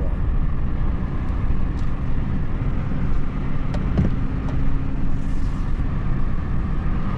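Steady engine and road noise of a car driving slowly, with a few faint ticks.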